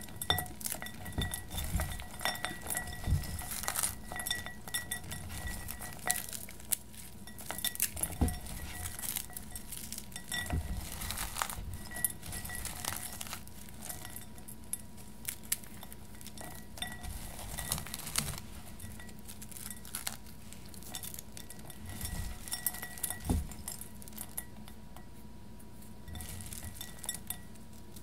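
Hands crushing and stirring white-fudge-covered pretzels in a glass bowl: pieces crunching and clinking against the glass in a run of small clicks, which thin out toward the end.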